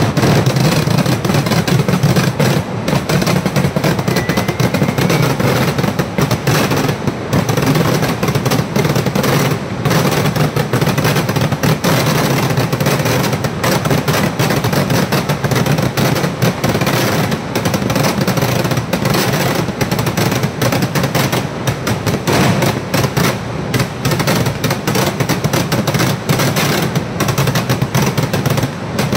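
Kerala vedikkettu fireworks: a dense, unbroken barrage of firecracker bangs going off in rapid succession, loud throughout.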